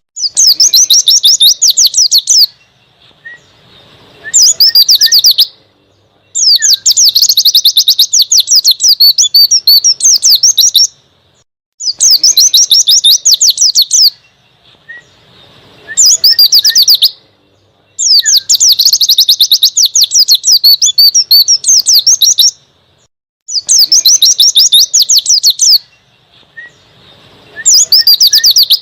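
White-eye (pleci) singing in the forest-style 'ngalas' manner: about eight loud bursts of rapid, high twittering, each one to five seconds long, with short pauses between them. A few soft single chirps fall in some of the pauses.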